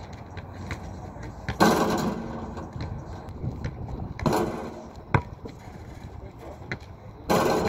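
A basketball striking the metal rim and backboard of an outdoor hoop three times, each a sharp clang that rings for about half a second, about three seconds apart. In between, the ball bounces a few times on the asphalt court.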